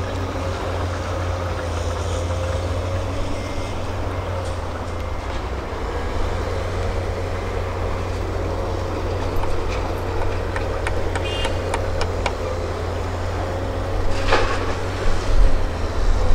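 Long-reach hydraulic excavator running at work: a steady diesel engine drone with a steady whine over it as the boom swings. Light metallic clicks come in the middle, and a louder clatter comes about two seconds before the end.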